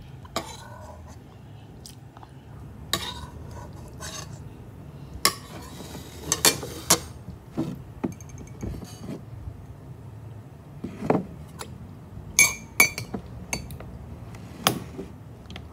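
Metal spoon clinking against a bowl and a ceramic mug, with the mug set down on a table: a scattered series of sharp clinks and taps, a few ringing briefly.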